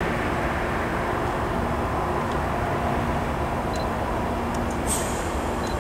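Steady low rumble of distant engines, with a faint steady hum and a few faint clicks about four and five seconds in.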